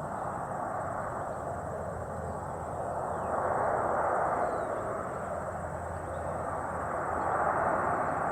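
Distant aircraft engine drone, swelling and fading twice.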